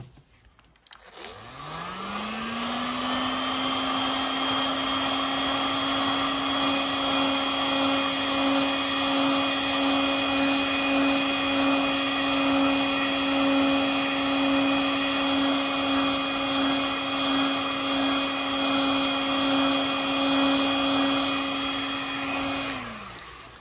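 Electric hot-air blower drying freshly painted acrylic test strips. Its fan motor spins up about a second in, runs steadily, then winds down just before the end.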